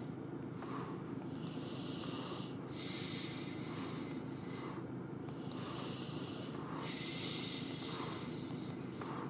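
A person breathing audibly close to the microphone, one noisy breath every second or two, over a steady low hum.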